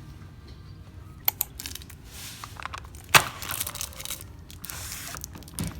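Crinkling and tearing handling noise, with a few sharp clicks; the loudest click comes about three seconds in.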